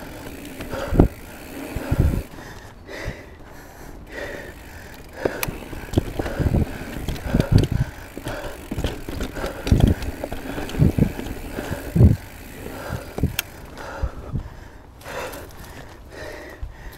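Rocky Mountain Element C50 full-suspension mountain bike ridden over rough dirt singletrack. Tyre noise runs steadily under irregular heavy thumps and rattles as the bike takes bumps and roots.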